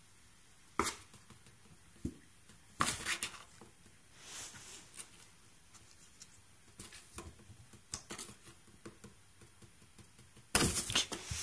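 Scattered taps and scratches on a cardboard box as a finger scratches its side and a Siamese kitten shifts inside, with a louder burst of cardboard rustling near the end.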